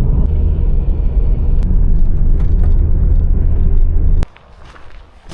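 Loud, steady low rumble that cuts off suddenly about four seconds in, leaving a much quieter background with faint ticks.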